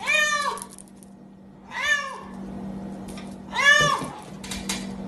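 A cat meowing three times, about two seconds apart, each meow a short call that rises and falls in pitch, over a steady low hum.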